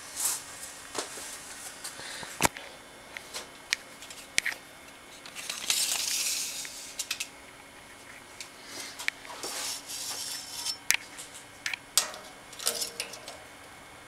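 Handling noise on a white wire bird breeding cage: scattered light metallic clicks and clinks, with a rustling patch about six seconds in.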